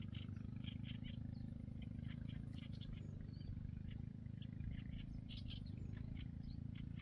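Small boat's motor running steadily with a low drone while the boat moves through shallow water. Short high chirps come and go over it.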